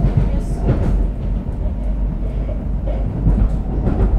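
Stockholm Metro C30 train running at speed, heard from inside the car: a steady, loud low rumble of the moving train on its track.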